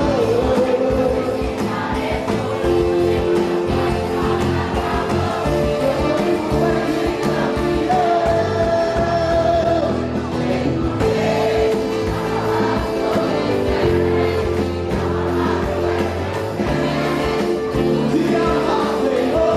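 Brazilian gospel song sung by a voice over a full band, with held sung notes over steady bass and drums.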